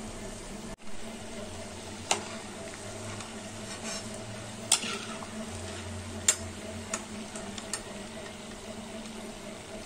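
Stuffed potato-paneer gujiya deep-frying in hot oil with a steady sizzle, broken by a few sharp clicks of a utensil against the pan.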